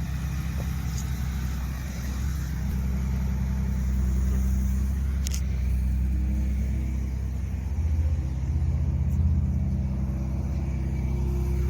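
A steady low rumble of a running engine, a little louder from about four seconds in, with one brief click about five seconds in.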